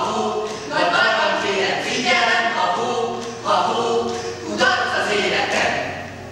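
A small group of voices singing together a cappella, in short repeated phrases, fading away near the end.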